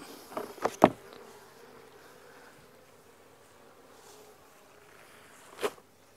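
Honey bees buzzing steadily around an opened nuc box. Several short knocks in the first second, and a sharper one near the end.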